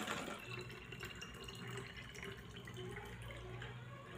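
Coloured water being poured in a thin stream from one plastic bottle into another, filling it.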